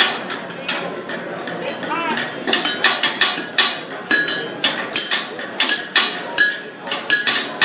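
Blacksmiths' hand hammers striking hot steel on anvils: a run of sharp, ringing blows that settles into a quick steady rhythm of about two to three strikes a second from midway on.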